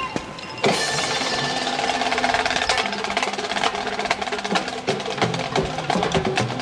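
High school marching band playing. Sharp percussion clicks lead into a loud full-band entrance about half a second in, then sustained brass chords over steady drum and percussion strokes.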